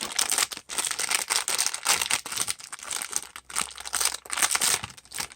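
Foil blind-bag packaging being crinkled and torn open by hand, a dense run of irregular crackles and rustles.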